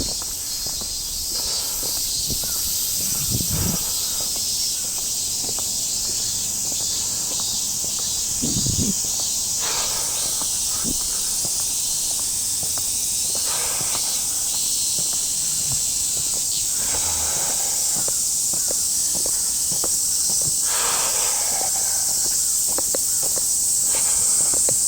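Cicadas chorusing in a steady, high, unbroken hiss, with footsteps walking beneath it.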